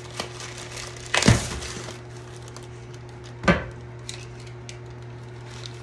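Plastic poly mailer bag being ripped open by hand: two sharp tears, about a second in and again about three and a half seconds in, with light crinkling between them, over a steady low hum.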